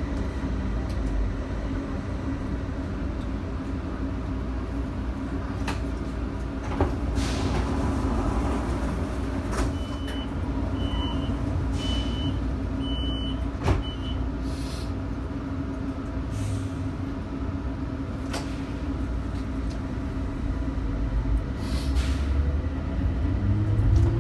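Rubber-tyred Bombardier Innovia APM 300 people-mover train running along its concrete guideway, heard from inside the car: a steady rumble with a constant motor hum and a few sharp knocks. About ten seconds in, a run of five short high beeps.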